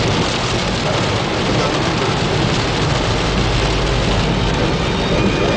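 Rain falling in a loud, steady hiss.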